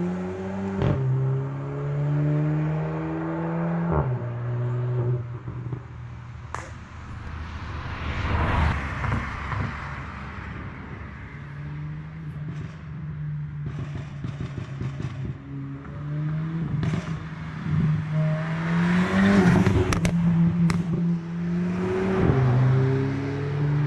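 Volkswagen Golf GTI Mk7's turbocharged 2.0-litre four-cylinder through a muffler-deleted exhaust, tuned to pop and crackle on overrun. The engine note falls off over the first few seconds, then a long stretch of crackling and popping follows in the middle. The engine note comes back and rises again, with a few sharp single pops near the end.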